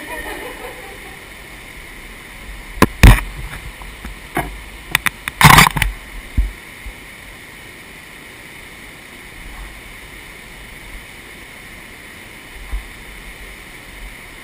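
A cluster of loud knocks and scrapes, the loudest about five to six seconds in, over a steady hiss.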